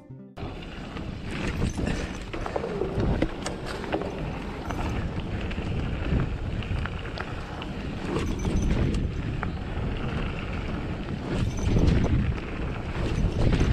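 Mountain bike rolling along a dirt forest trail: tyre noise on the dirt with frequent small rattles and knocks from the bike, and wind rumbling on the microphone.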